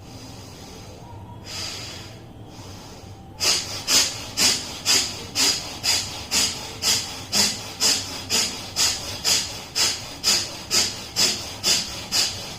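Bhastrika pranayama (bellows breath): a person breathing hard and fast through the nose. Two slower breaths come first, then from about three and a half seconds in a steady run of sharp, forceful breath strokes, about two a second.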